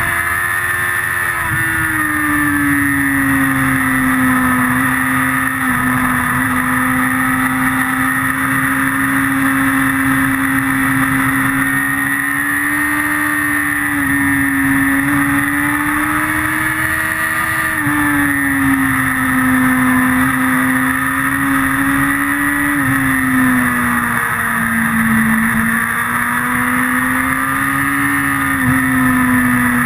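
Motorcycle engine held at high revs, heard from an onboard camera. Its note steps down and climbs back several times as the bike is ridden through corners.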